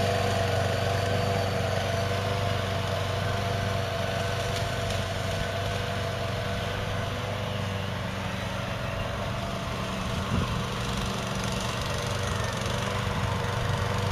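Hybrid GOAT 22T remote-control tracked slope mower running steadily, its gas engine humming with a steady whine over it as the machine drives forward, reverses and turns.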